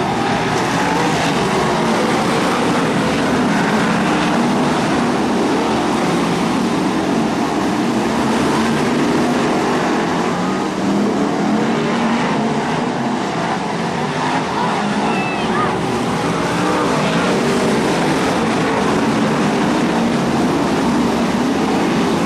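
BriSCA F1 stock cars' V8 engines racing round the track: a loud, continuous mass of engine noise that holds steady throughout.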